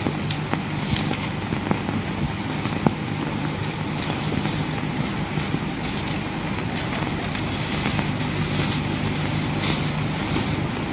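Steady hiss with a low hum and scattered faint clicks: the surface noise of an old 1950s film soundtrack.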